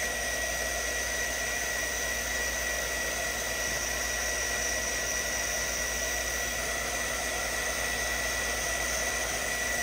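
Handheld hot-air dryer running steadily with a thin high whine, blowing on wet watercolour paint to dry it.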